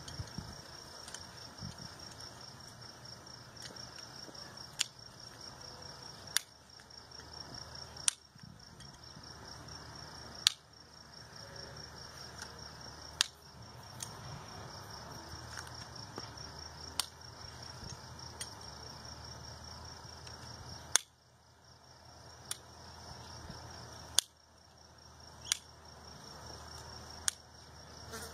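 Hoof nippers snipping a horse's front hoof wall during a trim: about a dozen sharp single clicks, one every one to three seconds.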